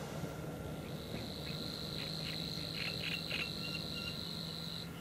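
A high, steady reeling trill from the reedbed starts about a second in and stops suddenly near the end. A run of short chirps sounds under it in the middle.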